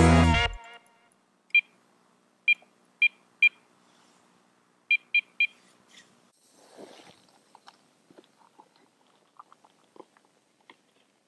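Electronic carp bite alarm beeping in short single tones, four and then three, as the line is adjusted on the rod. After that comes a faint rustle and a few light rattles of bait being scooped from a bucket.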